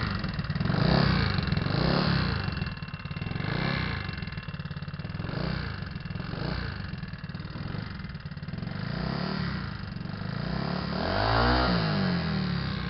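GY6 scooter's single-cylinder four-stroke engine running and being revved repeatedly, the pitch rising and falling with each throttle blip and a bigger rev near the end. It carries the weird noise that the owner wonders may be valve noise.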